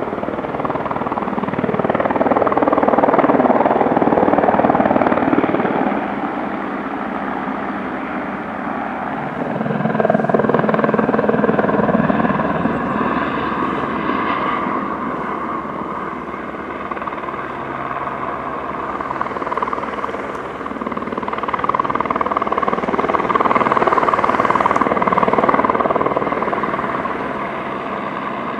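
Aérospatiale AS350 B Écureuil helicopter's rotor and turboshaft engine running as it flies with a load slung on a long line. The sound swells and fades three times.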